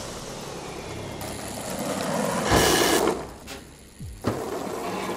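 Mechanical sound effects of clockwork cogwheels: a steady grinding rumble, then a loud rushing noise about two and a half seconds in that cuts off sharply, and a short knock near the end.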